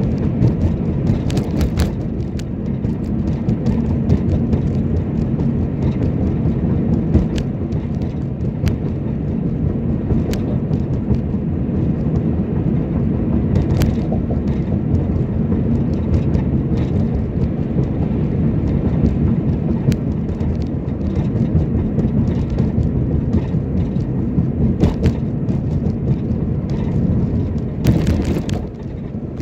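Road noise inside a moving car's cabin: a steady low rumble of tyres and engine, with occasional short clicks and knocks.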